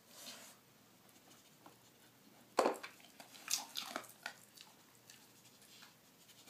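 Dog working a blue plastic Nina Ottosson treat puzzle with her nose: a sharp plastic clack about two and a half seconds in, then a quick run of smaller clicks and knocks about a second later as the pieces shift.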